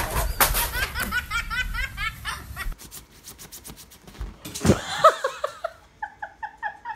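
A person laughing hard in rapid, high-pitched bursts for about two and a half seconds, then a few rising squeals and, near the end, a quick run of short high notes.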